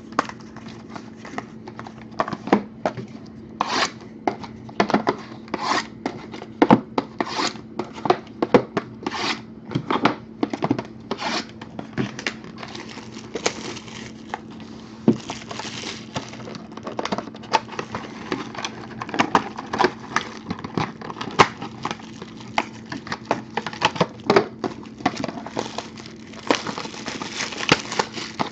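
Plastic shrink wrap being torn off trading card boxes and crumpled in the hands: dense, irregular crinkling and tearing crackles, over a steady low hum.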